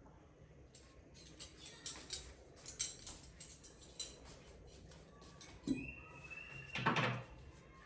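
Tableware being handled and set on a table: a run of light clicks and taps for the first few seconds, a brief high ringing tone after about five and a half seconds, then a louder knock near the end.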